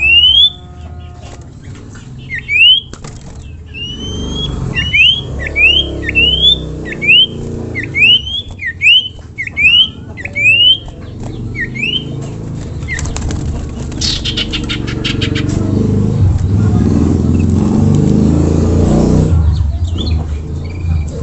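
Common iora (cipoh) whistling a run of short, rising notes, about one every second, through the first half. Later comes a brief rapid buzzy rattle, then a low rumble that swells and drops off near the end.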